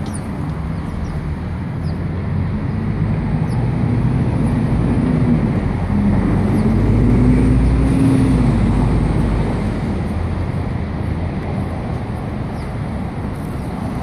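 Street traffic: a motor vehicle's engine rumbling past, growing louder to a peak about halfway through and then fading, over steady road noise.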